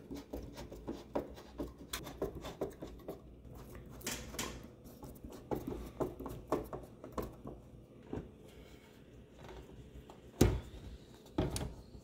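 Screwdriver turning screws into the plastic casing of a mini split indoor head unit: a scatter of small irregular clicks and creaks, with a couple of sharper knocks near the end.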